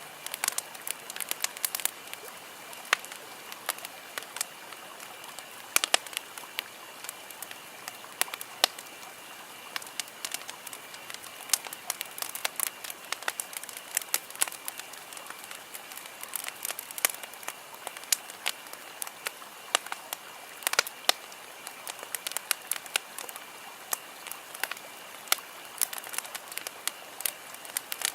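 Campfire crackling: burning wood giving irregular sharp pops and snaps, several a second, over a steady low hiss.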